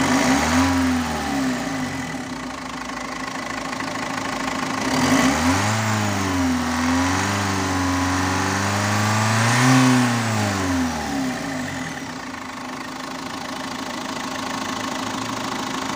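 Renault 1.5 dCi four-cylinder common-rail diesel with Siemens injection idling, revved briefly about a second in and again for several seconds from about five seconds in, then settling back to idle. It runs without its air filter fitted and sounds smooth, which the mechanic takes as the sign of a good repair.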